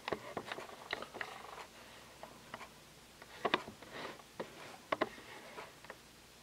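Faint scattered light clicks and taps, with soft scratchy rustles between them. The sharpest clicks come about a second in, at about three and a half seconds and at about five seconds.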